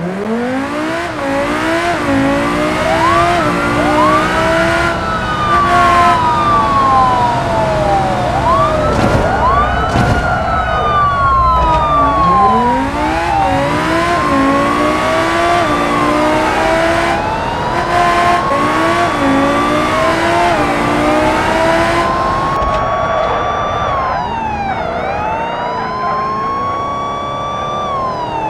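Police siren sound effects, several at once, wailing with pitches rising and falling and overlapping, over car engine noise. The sound effects are laid over a toy car chase.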